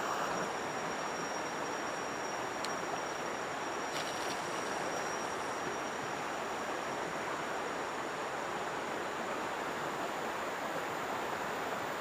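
Steady rushing of river water, with a thin, steady high-pitched tone over it and a couple of faint ticks.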